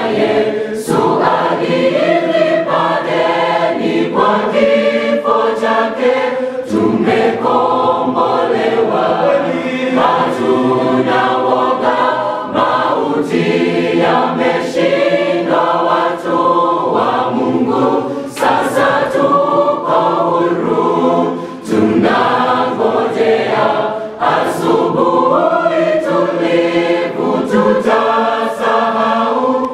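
A mixed choir of men's and women's voices singing a Swahili gospel song in parts, with short breaks between phrases.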